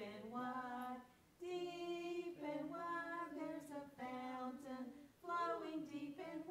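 Women and young children singing an action song together unaccompanied, in sung phrases with a short break about a second in and another near the end.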